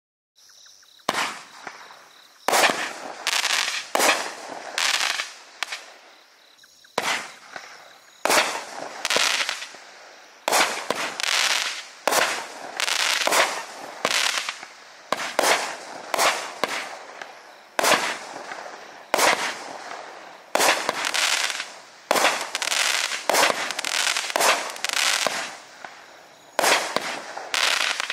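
Monkey Mania 'Circus' 200-gram firework cake firing shot after shot, starting about a second in. Each shot is a sharp bang about every second, trailing off in a hissing, fizzing tail from its glitter break.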